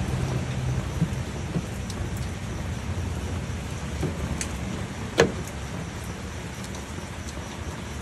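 Pliers clicking against the metal latch parts inside a Ford Ranger's exterior door-handle housing: a few light clicks and one sharp click about five seconds in, over a steady rushing noise.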